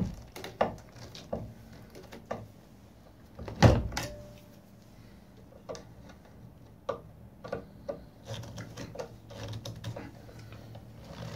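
Hand tool clicking and tapping against the metal encoder bracket and its screws as they are tightened bit by bit, with one louder knock nearly four seconds in.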